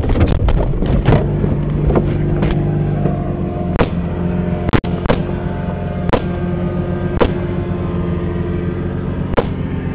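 Jeep Wagoneer engine running steadily while under way, heard from inside the vehicle, with a string of sharp knocks and rattles scattered through it, the sharpest about halfway in.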